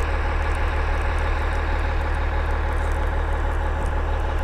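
Diesel engine of a heavy forestry machine idling steadily, with a constant low hum.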